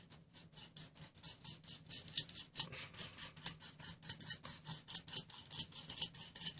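A nut spun by hand along a threaded rod, making rapid, irregular metallic clicking throughout.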